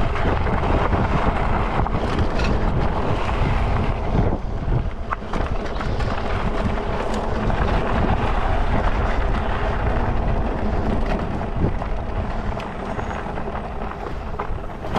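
Wind buffeting the camera microphone as a fat-tire electric bike rides a dirt trail, with scattered crunches and rattles of the tyres on loose gravel. The rush eases near the end as the bike rolls to a stop.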